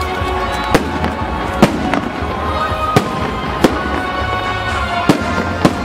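Fireworks salute: shells bursting with sharp bangs, about six at irregular intervals, over music playing throughout.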